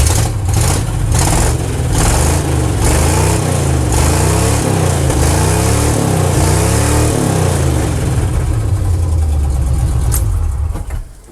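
A 1979 Chevy pickup's 350 Oldsmobile Rocket V8, revved hard several times in a row, its pitch climbing and falling with each blip of the throttle, then dropping away a little before the end. The engine carries a misfire that the owner puts down to a worn distributor cap.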